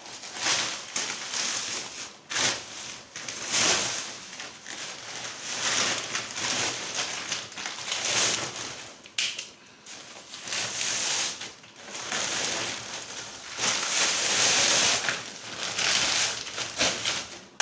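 Empty cement sacks crumpling and rustling as they are folded and stuffed into another sack: a string of irregular scrunching swishes, roughly one a second.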